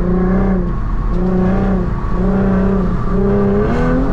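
Infiniti Q50's engine and exhaust running while cruising, heard from the cabin: a low drone that swells and fades about once a second over a steady rumble, climbing in pitch near the end.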